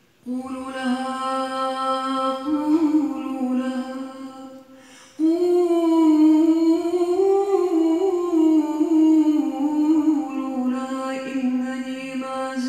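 A woman singing long, slowly gliding held notes in two phrases, the second starting after a short break about five seconds in.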